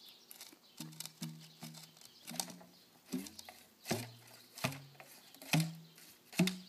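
A series of about nine sharp clicks or knocks on a potato gun, roughly one every 0.8 s and getting louder, each followed by a short, low ringing tone from the pipe.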